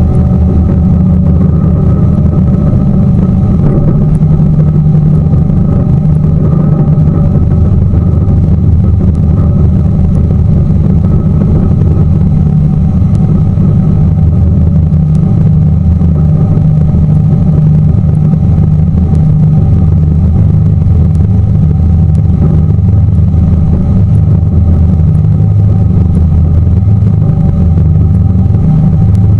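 Tour boat's engine running steadily at cruising speed, a loud, even low drone heard from on board.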